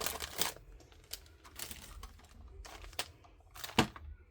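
Small plastic tools clicking and knocking as they are set into a plastic storage tray, a dozen or so separate taps with a crinkling rustle at the start. The sharpest knock comes near the end.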